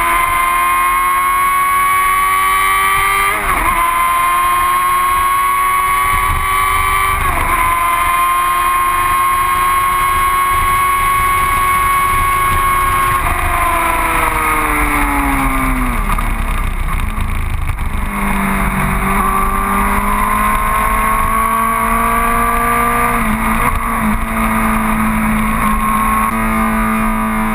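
Sport motorcycle engine at high revs on a racetrack, with two brief breaks as it shifts up. The revs then drop steeply as it slows hard, settling to a low steady engine note while a second engine's pitch climbs again.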